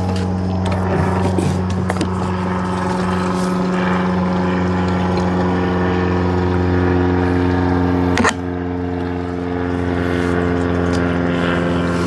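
A small engine running steadily at one constant speed, with a single sharp clack about eight seconds in.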